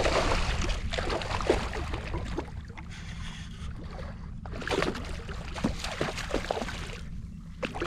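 Shallow water splashing and sloshing in irregular bursts, with a steady low rumble of wind on the microphone.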